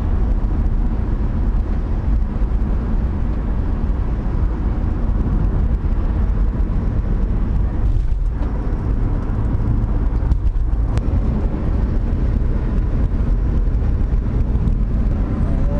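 Steady low rumble of a car driving along.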